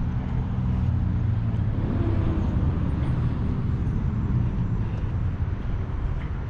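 Steady low rumble of nearby highway traffic, with a vehicle's engine drone standing out in the first few seconds.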